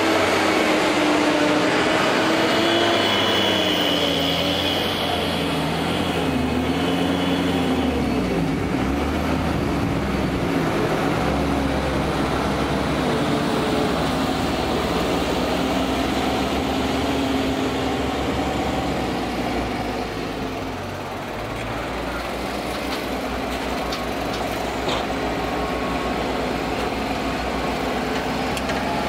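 Fendt tractor's diesel engine running with a Krone loader wagon behind it. Its pitch rises and falls for the first several seconds, then it settles into a steady heavy run while working the wagon on the grass silage clamp.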